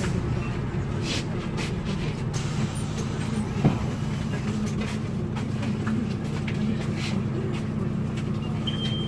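Interior of a Solaris Urbino 8.9LE city bus on the move: engine drone with rattles and clicks from the bus fittings, and a single sharp knock about three and a half seconds in. A high electronic beep starts near the end.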